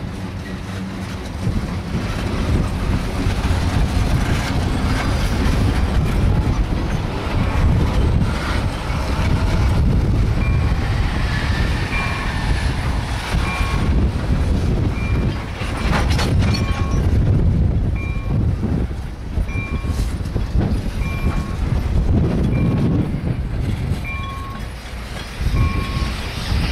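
Freight train of tank cars rolling past with a steady low rumble and clatter of the wheels on the rail joints, and a single sharp clank about two-thirds of the way through. From about halfway, a short high electronic ding repeats a little more than once a second.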